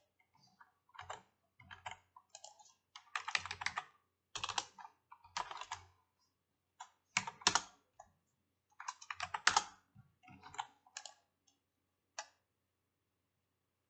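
Computer keyboard typing in irregular runs of quick keystrokes with short pauses between, stopping near the end.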